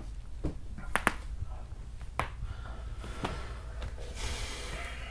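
Scattered sharp clicks and taps at a computer, roughly a second apart, over a low steady hum; a soft rustling noise near the end.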